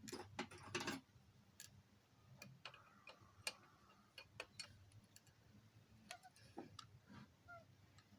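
Faint, scattered metallic clicks and ticks from a wrench turning the double nuts as a head stud with a new oversized helicoil is driven into the tapped hole. There is a quick cluster of clicks in the first second, then single clicks at uneven spacing.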